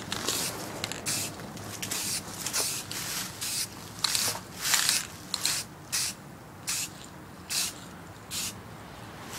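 Aerosol can of dark brown spray paint hissing in many short bursts, roughly one or two a second, as a light mist coat goes over a tape-masked PVC bow.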